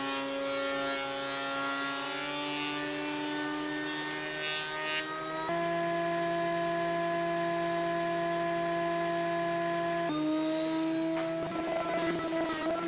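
A benchtop thickness planer is running. For the first few seconds it is cutting a wooden strip, with hiss over a motor hum whose pitch drifts. After about five seconds it gives a steady, even hum with no board in it. Near the end the pitch shifts and the cutting noise returns as it takes a board again.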